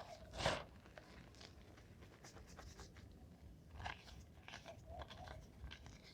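Reformed gym chalk blocks being crushed: one loud crunch about half a second in, then scattered soft crackles and crumbling, with another small cluster of crunches around four seconds in.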